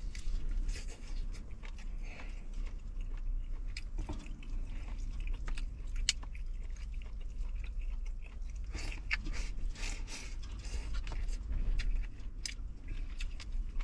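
A person eating stewed free-range chicken close to the microphone: irregular bites and chewing with many small wet clicks, over a steady low hum.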